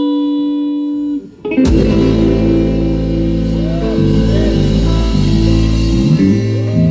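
Rock band music: a single held guitar note rings for about a second, breaks off briefly, then the full band comes in with bass and guitars.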